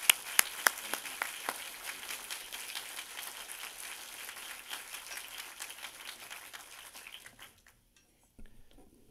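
Audience applauding, a dense patter of many hands clapping that dies away about seven and a half seconds in.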